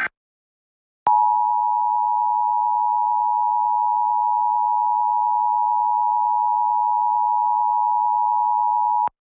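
Emergency Alert System attention signal: two steady tones sounding together, starting about a second in and holding for about eight seconds before cutting off. It marks the start of an emergency alert message, here a test.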